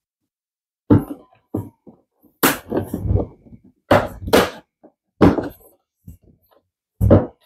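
Plastic front side cover of a Honda ADV 150 scooter being pried off its clips by hand: a series of separate clacks and knocks of hard plastic, some in quick pairs.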